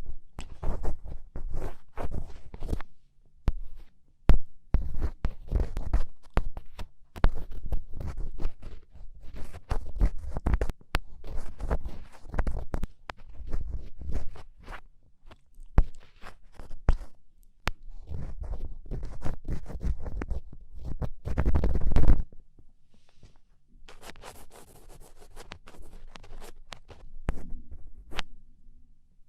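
Close-up scratching and scraping of an ear pick working inside an ear canal, in irregular strokes with sharp crackles and low thumps. It is loudest just before the last quarter, then goes on as fainter, lighter scratching.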